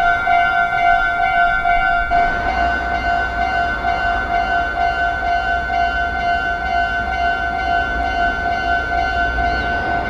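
Japanese level-crossing electronic warning bell ringing in a steady repeating pulse. From about two seconds in, the rumble of an approaching train builds up underneath it.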